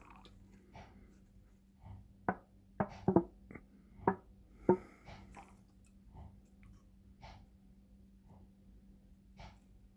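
Sharp metallic clicks and taps from handling a Zippo lighter's metal case and insert, about six of them close together between two and five seconds in, with fainter ticks around them. A faint steady hum runs underneath.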